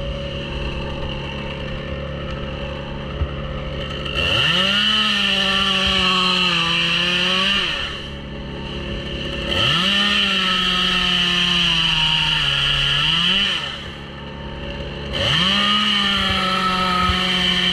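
Chainsaw idling, then run up to full throttle three times for a few seconds each, its pitch sagging under load as it cuts through birch wood, dropping back to idle between cuts.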